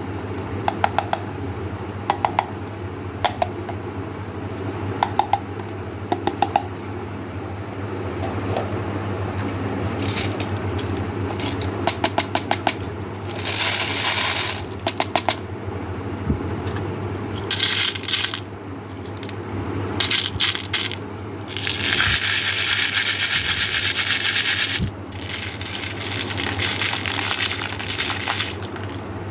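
Small hard candies such as M&M's clicking and clattering against a hard container, followed by several rushes of candy being poured, the longest lasting about three seconds, over a steady low hum.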